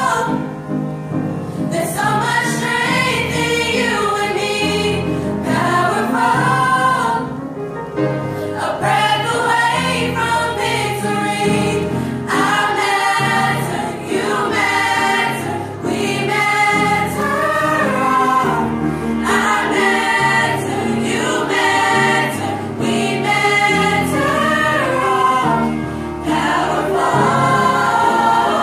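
High school mixed-voice chorus singing together, with male and female voices in parts and brief breaks between phrases.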